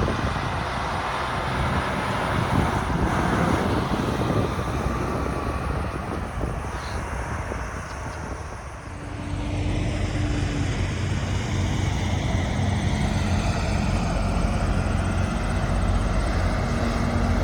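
Semi trucks' diesel engines running: a broad rushing noise at first, then a steady low engine hum from about halfway that slowly grows louder.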